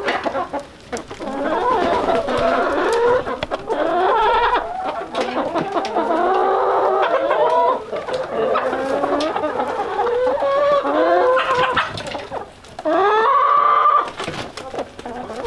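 A flock of hens clucking and squawking, many overlapping calls at once. Near the end one louder call rises in pitch and holds.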